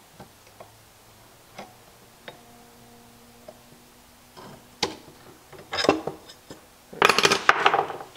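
Small steel hand tools, scissors and a scribe, tapping and clicking against a steel ammo can lid, with light scattered clicks at first. Near the end the tools are set down in a louder clatter on the wooden workbench.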